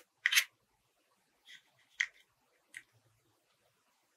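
Four short, sharp rustles and clicks of cut plastic drinking-straw pieces being handled and pressed onto a paper clock. The first, just after the start, is the loudest.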